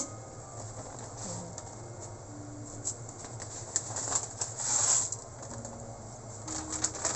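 Water boiling gently in a stainless steel stockpot with dried rice noodles just dropped in: a faint bubbling hiss with small pops over a steady low hum. A brief rustle of a plastic noodle packet comes about five seconds in.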